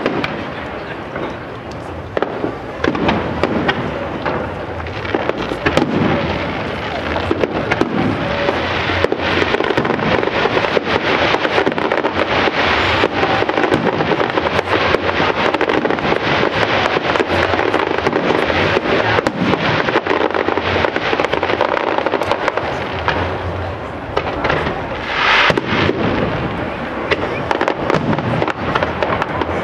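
Professional aerial fireworks display, shells bursting in quick succession: a dense run of bangs and crackles that gets louder a few seconds in.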